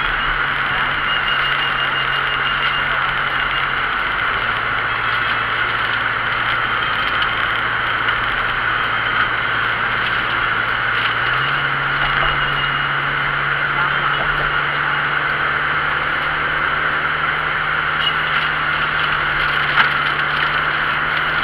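A motor vehicle driving: steady road noise with a low engine hum that drops in pitch about four seconds in and rises again about eleven seconds in.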